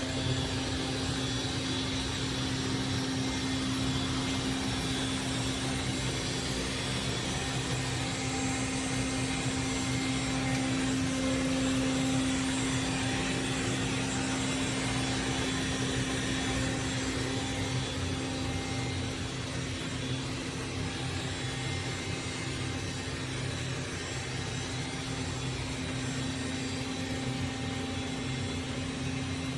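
Dreame L10s Ultra robot vacuum running: a steady whir of its suction fan with a constant hum, unchanging throughout.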